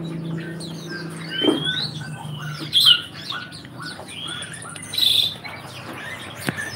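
Many caged songbirds chirping and whistling at once, short overlapping rising and falling calls, with a brief hissy burst about five seconds in.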